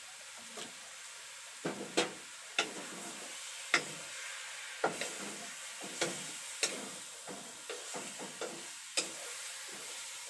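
Wooden spatula knocking and scraping irregularly against a pan as cubes of pork are stirred, starting about a second and a half in, over a faint steady sizzle. The pork is frying in the pan with no oil added, rendering out its own fat.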